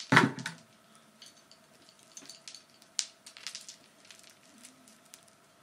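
A string of plastic pumpkin lights handled close to the microphone: a loud knock and rattle right at the start, then soft clicks and rustling of the plastic pumpkins and wire, with one sharp click about three seconds in.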